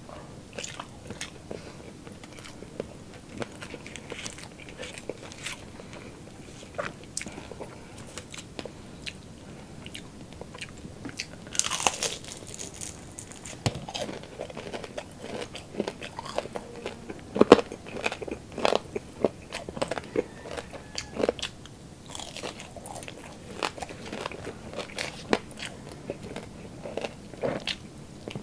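Close-up eating sounds: crisp crackling crunches and chewing of deep-fried pork chicharon bulaklak, in irregular bites that come thickest and loudest near the middle.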